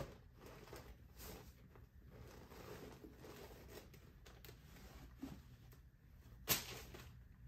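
Faint rustling of a cotton dust bag and tissue paper being handled as a handbag in its dust bag is lifted out of a box, with one brief louder rustle about six and a half seconds in.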